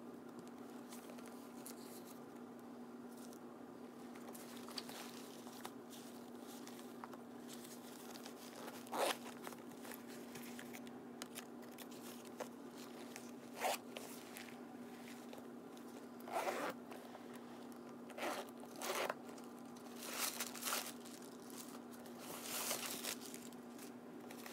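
Metal zipper on a leather backpack pulled along in about seven short strokes, with handling rustles, all in the second half, over a steady low hum.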